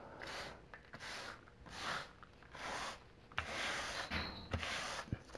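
A hand and forearm brushing wood chips off a work surface in about six even sweeping strokes, each roughly half a second long, with a few light knocks in the second half.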